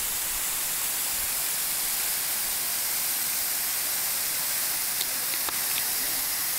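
Waterfall spraying down a cliff and splashing over rock ledges: a steady, even hiss of falling water, with two faint clicks about five seconds in.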